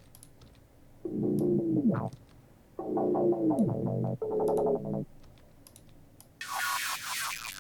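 Distorted synth bass playing separate drum-and-bass notes in the soloed track: three dark, low-passed notes whose pitch slides down at the end, then a brighter, thinner high-passed note near the end.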